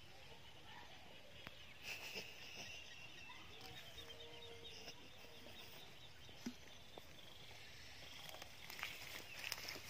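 Faint outdoor ambience with distant bird calls and chirps, and a few soft knocks from a wooden stick digging into soil.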